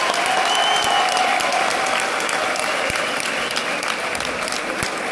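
Boxing crowd applauding: a steady wash of many hands clapping, with a few voices mixed in.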